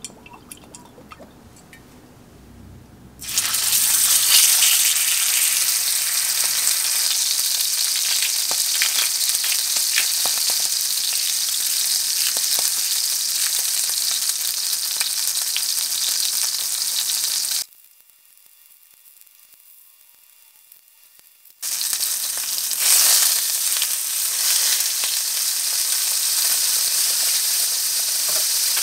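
Beef steak sizzling in hot oil in a frying pan: a loud steady hiss that starts about three seconds in, drops away for about four seconds past the middle, then comes back.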